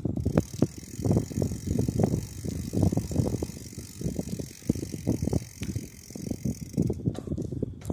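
Bicycle rolling along a cracked asphalt trail. The tyres and handlebars make an uneven, bumpy rumble and rattle, picked up through the handlebar-mounted camera.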